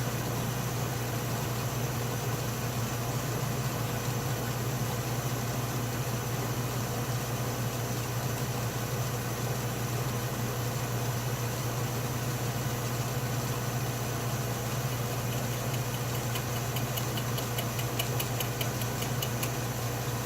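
Atlas metal lathe running steadily under power with the tool taking a light cut, a constant motor hum with a faint fast ticking coming in during the last few seconds.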